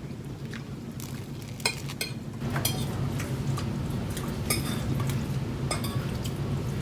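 Eating at the table: cutlery clinking and scraping on a plate in scattered small clicks, over a steady low hum.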